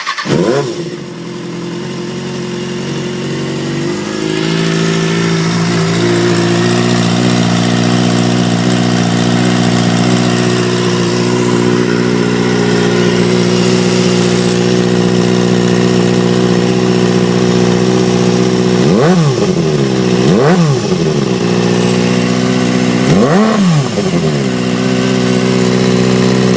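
2007 Kawasaki ZX-6R's inline-four engine idling just after starting, its idle stepping up slightly about four seconds in. It is then given a series of quick throttle blips, each rev rising and falling sharply, in pairs about two-thirds of the way through and again near the end.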